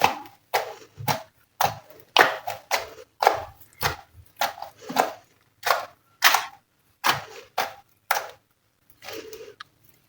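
Glossy slime mixed with eyeshadow being pressed and worked by hand, making a string of short sticky pops and crackles, about one or two a second, that stop shortly before the end.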